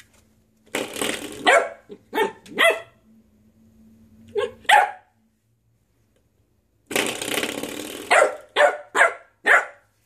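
Corgi puppy barking in two bouts of short, high yaps, about four in each, around a second in and again near eight seconds in. Each bout follows a sudden twang from a spring door stopper being flicked, which fades over about a second.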